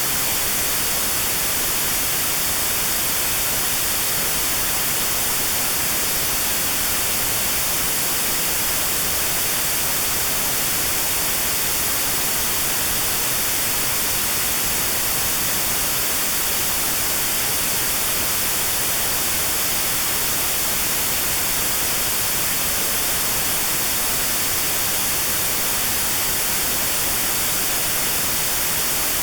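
Steady, even white-noise hiss with a narrow band around 4 kHz cut out: notch-filtered white noise used as notched sound therapy for tinnitus at 4 kHz.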